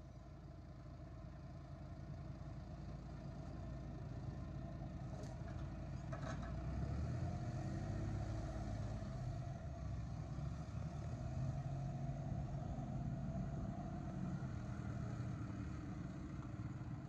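Massey Ferguson loader tractor's diesel engine running steadily as the tractor moves, growing louder over the first seven seconds or so and then holding. There are a couple of short clanks about five to six seconds in.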